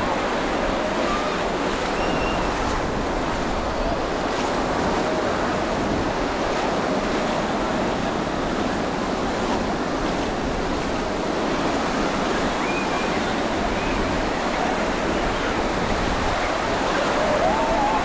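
Small sea waves breaking and washing up the shallow shore: a steady rush of surf, with faint shouts and voices of bathers now and then.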